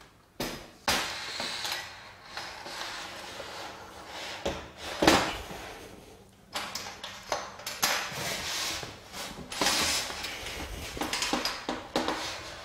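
Clanks, knocks and scraping of an aluminium solar-panel mounting frame and panel being handled and set in place, with the sharpest knock about five seconds in.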